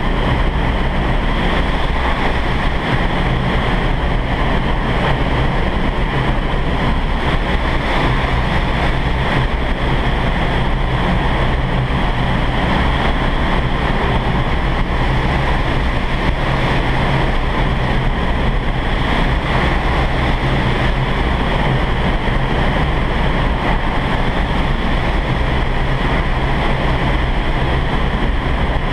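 Steady, loud rush of the upward airflow in an indoor vertical wind tunnel's flight chamber, with the air blasting over the microphone.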